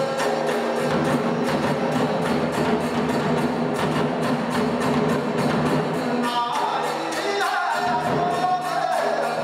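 Nanbu kagura accompaniment: voices chanting in a sung line over a steady beat of hand cymbals and drum, about four strikes a second.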